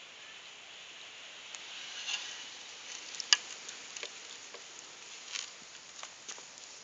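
Cat drinking milk by dipping its paw and lapping: scattered small wet clicks and taps over a steady hiss, the sharpest about halfway through.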